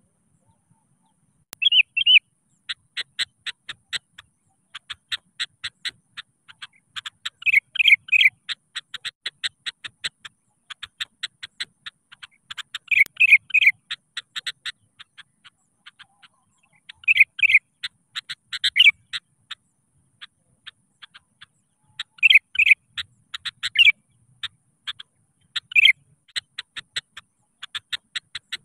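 Sooty-headed bulbul (kutilang) in full song, calling out to a rival: loud bubbly song phrases every few seconds, set among runs of short, quick, evenly spaced notes. It starts about a second and a half in.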